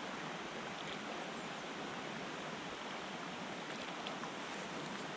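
Running water rushing steadily, an even hiss with no breaks.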